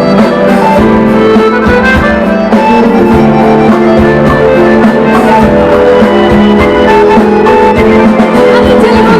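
Live band playing an instrumental passage: held melody notes over a steady drum beat, with no singing.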